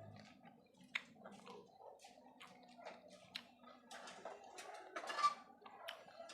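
Close-up chewing and wet mouth clicks of someone eating, irregular throughout, louder for a moment about five seconds in.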